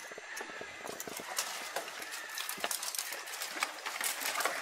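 Dry branches and twigs crackling and snapping in an irregular run of clicks as a person clambers through a tangle of deadwood.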